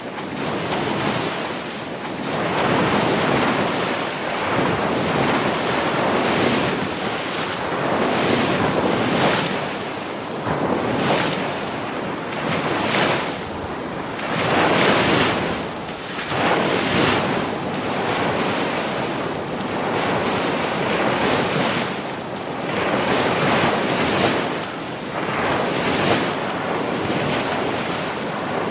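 Ocean surf: waves washing in continuously, swelling and easing every second or two with a hiss as each breaks.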